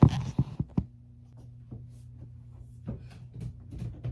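Several sharp knocks and clicks in the first second, then a steady low hum with scattered light taps, like objects being handled beside a running household appliance.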